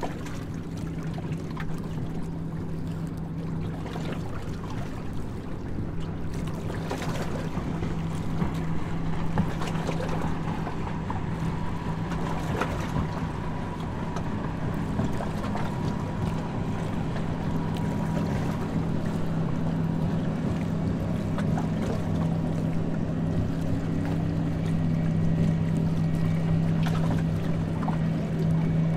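Tour boat's engine running with a steady low drone under water and wind noise, slowly growing louder.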